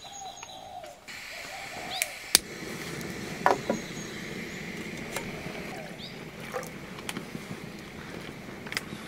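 Jetboil canister stove burning: from about a second in the burner gives a steady rushing gas-flame sound, with a few sharp clicks and clinks from the lighter and the cooking cup being set on it, the loudest about three and a half seconds in.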